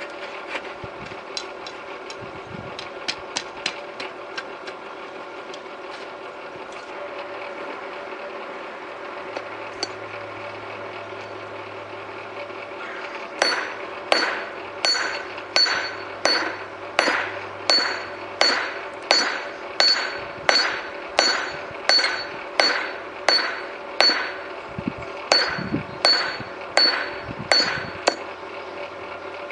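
Hand hammer forging a glowing piece of railroad rail head, high-carbon steel worked near welding heat, on a steel anvil block: about twenty ringing blows at roughly one and a half a second, starting about halfway through, with a short pause near the end. Before the hammering there is the steady hum of the forge's electric blower and a few light clinks of tongs in the fire.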